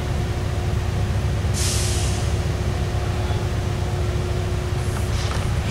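Deep, steady rumble of a train, with a short hiss of released air about one and a half seconds in and a fainter hiss near the end.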